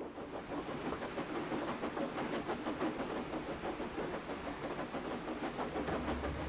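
Steam locomotive running at speed: quick, even chuffs mixed with wheels clattering over the rail joints, under a steady high hiss of steam.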